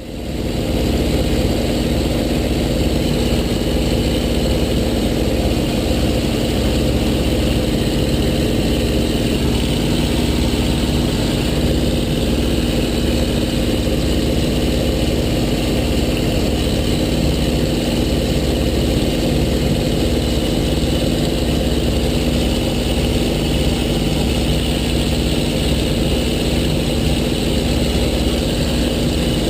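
The electric motor and propeller of a small radio-controlled P-51 model plane running at a steady pitch, with a fluttering low wind rumble over the microphone.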